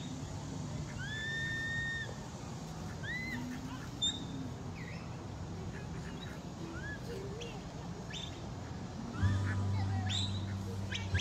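Scattered short, high chirps and whistle-like calls, a few held for about a second, over the low murmur of an outdoor crowd; a steady low hum sets in about nine seconds in.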